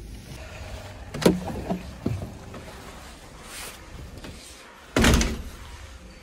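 A door being opened and shut: a few sharp clicks and knocks a second or two in, then a louder thud about five seconds in.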